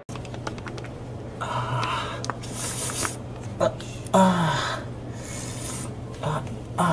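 A plastic squeeze bottle squirting liquid onto a hard floor in several wet, sputtering bursts over a steady low hum. One burst, about four seconds in, has a low falling tone.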